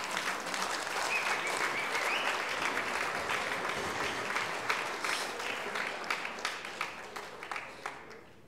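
Audience applauding: a dense patter of clapping that thins out and dies away near the end.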